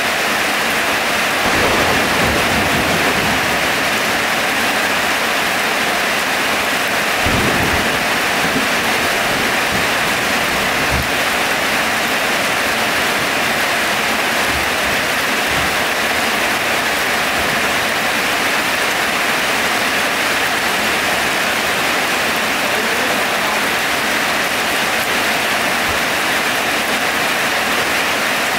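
Heavy rain falling steadily, with low rumbles about two seconds in and again about seven seconds in.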